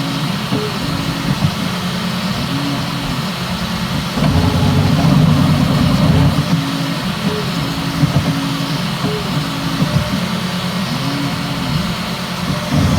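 Bambu Lab X1 Carbon 3D printer running a print: its stepper motors hum in tones that keep stepping and sweeping up and down as the print head moves fast back and forth, over a steady hiss. It gets louder for a couple of seconds about four seconds in.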